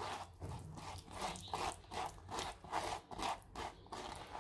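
Fingers rubbing blended fruit pulp against a stainless steel mesh strainer, a rhythmic wet scraping of about two to three strokes a second, as the pulp is pushed through the mesh to hold back the fibrous residue for jam.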